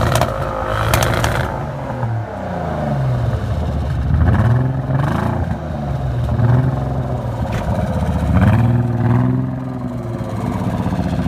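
Nissan 300ZX's V6 engine revved up and falling back about four times in a row, each rev lasting a second or two. The engine has a misfire of unknown cause.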